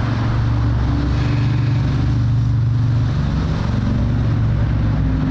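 Electric power tool running steadily under load, cleaning paint and gunk off bolts, with a low motor hum that shifts slightly in pitch about three seconds in.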